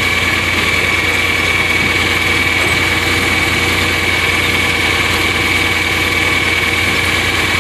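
Tractor engine idling steadily, with a thin constant high whine over the engine noise.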